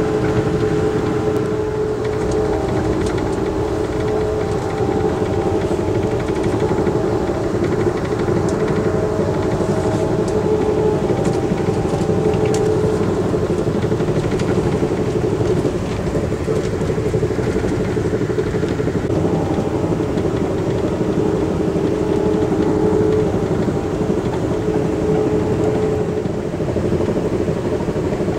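Inside an Amtrak Hiawatha passenger coach running at speed: a steady rumble of the wheels on the track. A constant hum runs over it and fades for a few seconds midway before coming back.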